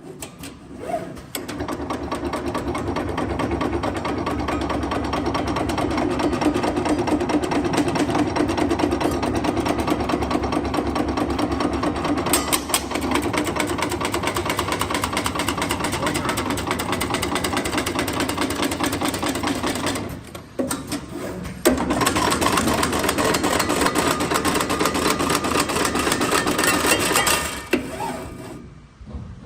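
CNC automatic channel letter bending machine running, a fast, steady mechanical clatter. It breaks off briefly about twenty seconds in, starts again, and stops shortly before the end.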